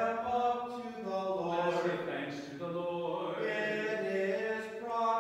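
A man chanting liturgical prayer in Byzantine plainchant, singing long held notes that step up and down in pitch.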